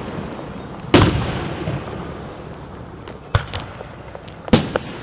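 Fireworks shells bursting with sharp bangs: the loudest about a second in, followed by a long rolling echo that dies away slowly, then two quick smaller bangs about three and a half seconds in and another near the end.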